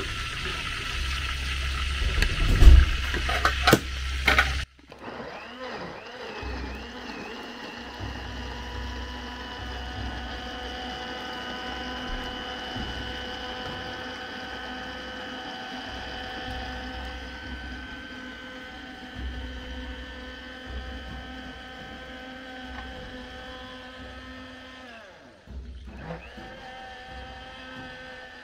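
Knocks and rattles as the blender jar's lid goes on, then a Philips countertop blender's motor runs steadily, grinding fresh tomatoes to a smooth purée. The motor cuts out briefly about three seconds before the end and starts again.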